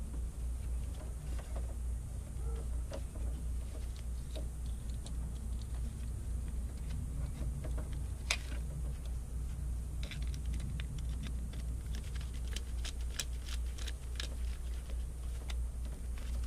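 Small clicks and taps of a screwdriver and stiff #6 copper wire against a 50-amp two-pole circuit breaker as the wires are fitted into its terminals. There is one sharp click about eight seconds in and a quick run of clicks a couple of seconds later.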